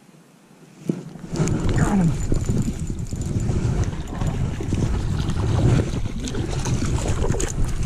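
Loud wind rumble and handling noise on the camera microphone, starting about a second in. A trout is being played on a spinning rod and reel at the time.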